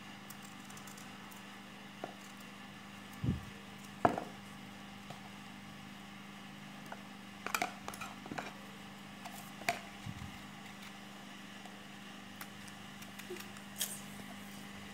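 A small kitchen knife peeling the skin off an unripe green mango, heard as a few faint, sharp clicks and scrapes and a couple of dull knocks, over a steady low hum.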